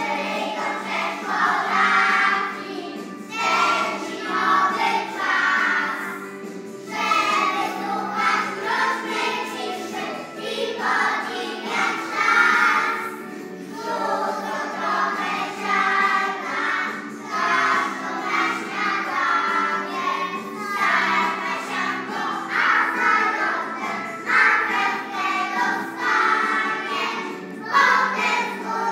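A group of young children singing a song together in Polish, phrase after phrase, over steady instrumental accompaniment.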